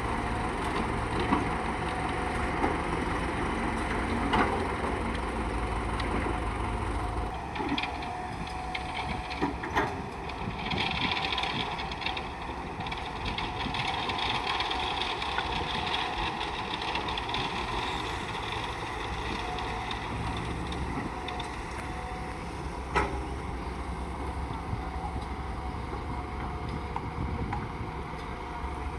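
Engine of a heavy construction machine running continuously, its low rumble dropping about seven seconds in and picking up again past the twenty-second mark. Occasional sharp knocks of metal work sound over it.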